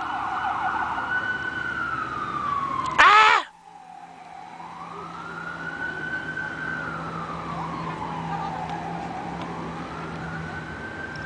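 Emergency vehicle siren wailing in slow rising and falling sweeps, about four to five seconds per cycle. About three seconds in, a short loud shout of 'Ah!' cuts across it.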